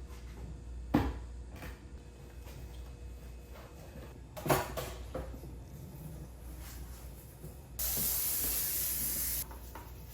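Two light knocks, then a steady hiss lasting about a second and a half near the end, as from a spray.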